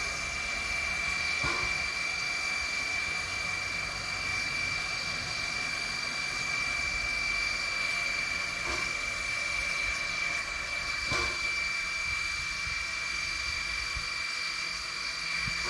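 Steam tank locomotive Energie 507 (0-6-0T, built 1946) standing in steam: a steady high-pitched hiss with a constant tone running through it, and a few faint knocks.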